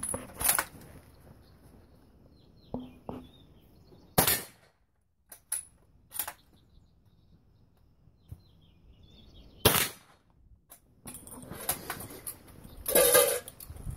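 Krag-Jorgensen bolt-action rifle firing: three loud shots roughly four to five seconds apart, with smaller cracks and light clicks and knocks between them as the bolt is worked.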